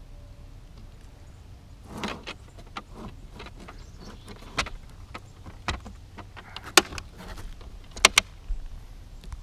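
Handling noise from a wooden, glass-fronted display case being opened and moved: an irregular run of clicks, knocks and rubbing starting about two seconds in, with two sharp clicks near the end.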